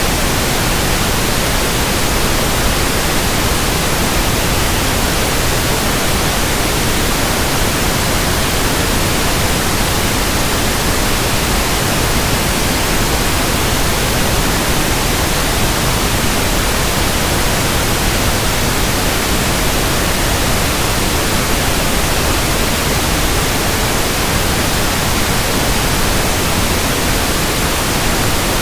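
Steady pink noise test signal, an even hiss across the whole range at constant level, used for measuring a speaker or room's frequency response.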